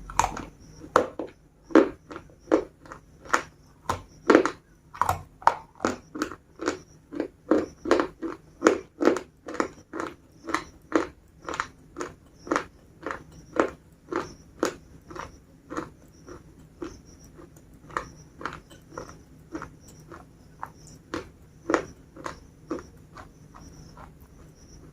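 Biscuits being bitten and chewed close to the microphone, a crisp crunch about twice a second. The crunches are loudest in the first few seconds and grow fainter and sparser in the last third.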